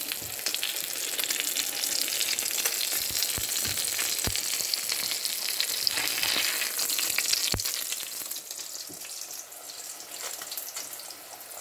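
Minced-meat burger patties sizzling in hot oil in a frying pan, with a couple of sharp clicks partway through; the sizzle grows weaker over the last few seconds.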